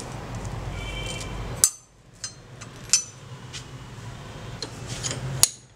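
Sharp metallic clicks and clinks as the separated steel blades of old scissors and their loose washers are handled and set down on a wooden block. Three louder clicks stand out, about a second and a half, three and five and a half seconds in, with a low hum under the first part.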